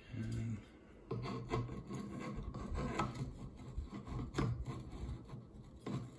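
Handling noise as an astronomy camera is fitted and turned against a telescope's filter wheel: irregular rubbing and scraping of metal parts, with light clicks, as it is worked toward its seated position.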